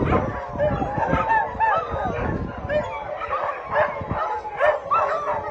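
A big crowd of shelter dogs barking all at once, many overlapping voices and no single dog standing out.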